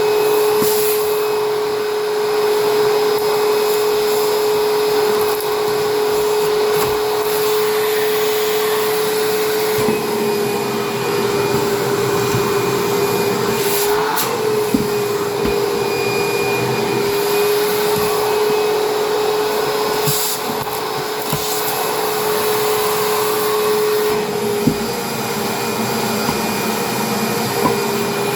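Vacuum cleaner running steadily while being used on a kitchen floor, with a constant motor whine and a few short clicks as it is moved around.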